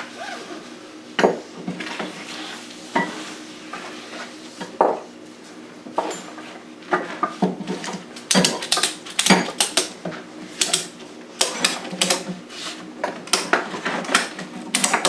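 Ratchet straps being tightened: a few scattered clicks and knocks, then, from about eight seconds in, quick runs of metallic ratchet clicks.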